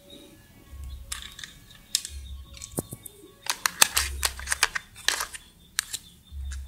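Plastic toy-kitchen pieces being handled: a plastic toy knife clicking and tapping on a plastic cutting board, in scattered light taps with a quick run of them about halfway through.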